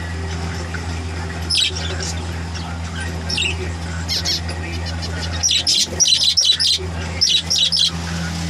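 Zebra finches calling: scattered short, high calls at first, then a quick run of them from about halfway through. A steady low hum sits underneath.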